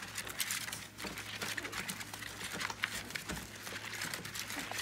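A litter of 2.5-week-old yellow Labrador Retriever puppies nursing from their mother: a busy, irregular run of short suckling and smacking sounds, with paws shuffling on the plastic pool floor.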